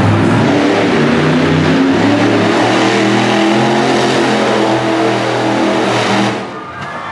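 Monster truck engine revving hard, its pitch stepping up and down, then dropping away about six seconds in as the throttle comes off.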